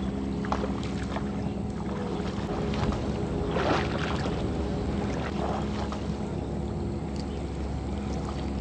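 Legs wading through shallow muddy floodwater, splashing with each step, over a steady low hum.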